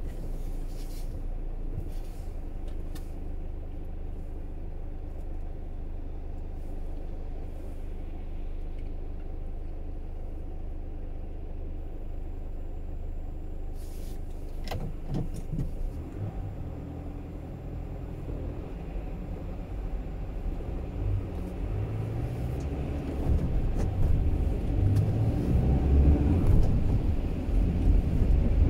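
A car driving on a city road: steady low engine and road rumble with a few sharp clicks, growing louder in the last few seconds.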